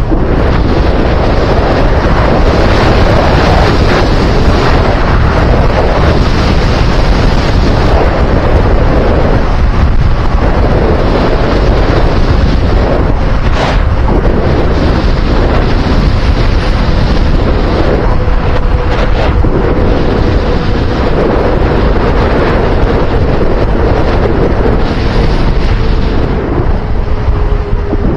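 Loud, steady wind noise rushing over the microphone, with a faint steady hum underneath that slowly drops in pitch over the second half and a single sharp click about halfway through.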